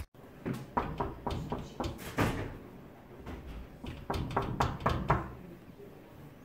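Knuckles knocking on a wooden office door: a run of several knocks, a pause of a second or two, then a second run of knocks.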